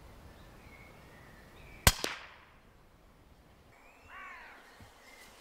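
A silenced air rifle fires once: a sharp crack followed a fifth of a second later by a second, fainter knock. About two seconds later a crow caws once.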